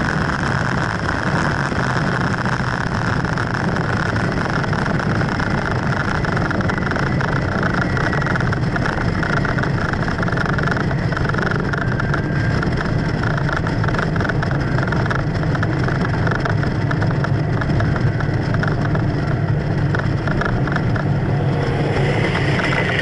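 Steady drone of a vehicle's engine with road and wind noise while cruising at highway speed. Near the end another car's engine joins as it pulls alongside.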